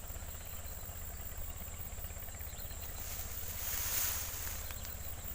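Outdoor background: a steady low rumble under a thin, steady high-pitched whine. A rush of hiss swells about three seconds in, peaks about four seconds in, then fades.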